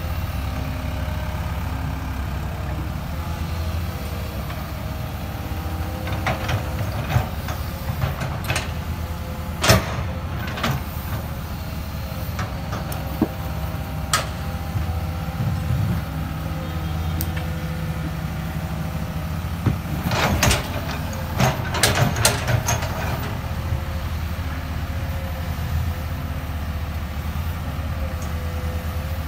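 Excavator's diesel engine running steadily, with metal clanks and knocks from the working machine now and then, most of them in a burst about twenty seconds in.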